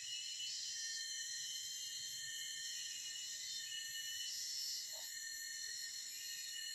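Forest insect chorus: many insects trilling together in a steady, layered high-pitched drone that holds even throughout.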